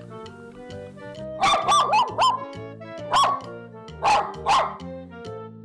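A small long-haired white dog barking at its owner in protest: seven sharp, high barks in three bursts, a quick run of four about a second and a half in, then one, then two. Background music plays underneath.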